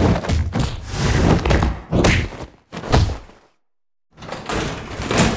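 Isolated film sound effects for a scuffle in a train carriage: a run of thuds, knocks and a door slam. They cut out for about half a second some three and a half seconds in, then the knocks resume.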